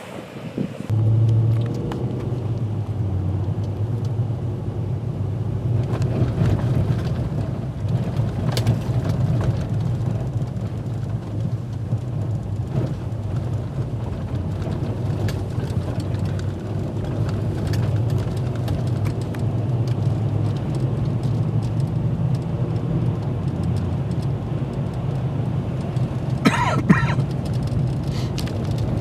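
Nissan Titan pickup driving off-road, its engine and tyres making a steady low rumble that grows louder about a second in, with scattered knocks and a brief squeak near the end.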